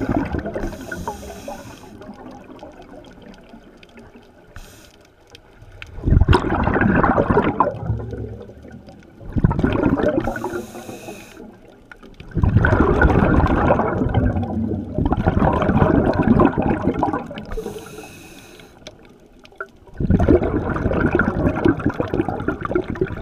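A scuba diver breathing through a regulator underwater: about five loud bubbling exhalations a few seconds apart, each lasting about two seconds, with brief hissing inhalations between some of them.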